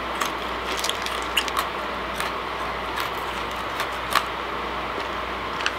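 Chewing a crunchy strawberry-coated biscuit stick, with small, scattered crisp cracks over a steady hiss of room noise.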